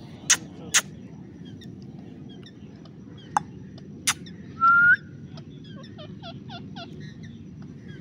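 Rose-ringed parakeets calling: a few short, sharp squawks, then a brief rising whistle just before the five-second mark, which is the loudest sound, followed near the end by a run of faint quick chirps.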